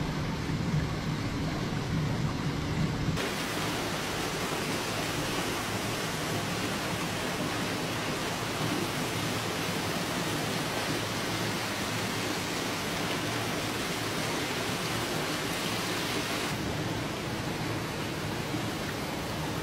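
Steady, even rushing hiss of water, which turns brighter about three seconds in and then holds steady.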